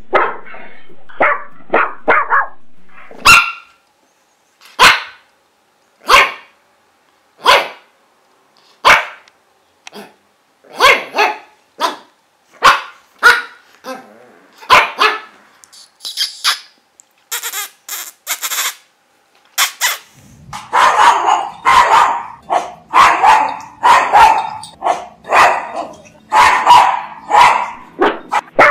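Pug barking repeatedly: single sharp barks about a second apart, then quicker, louder barking in the last third.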